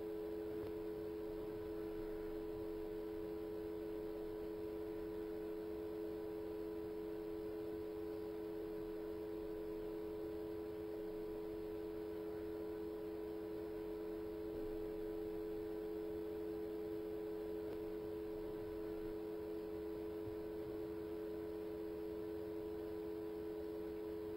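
Steady electrical hum made of two constant low tones, with a faint hiss beneath, unchanging in level.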